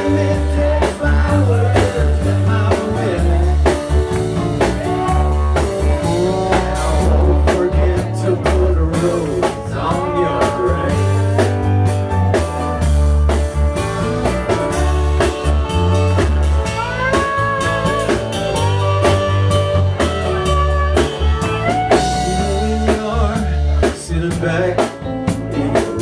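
Live blues-rock band playing loud and steady: guitars, bass and drum kit, with sliding melodic lines over a heavy bass beat.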